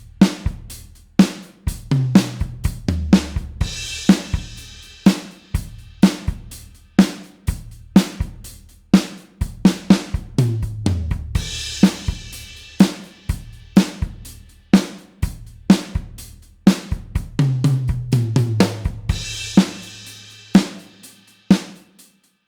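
Rock drum kit playing a steady beat on kick, snare and hi-hat. Three times a tom fill steps down in pitch and lands on a crash cymbal.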